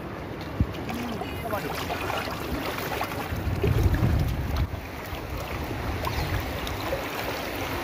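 Shallow lake water splashing as a wading man bends and grapples with a grass carp caught in his cast net, under steady wind rumble on the microphone. The splashing is loudest about halfway through.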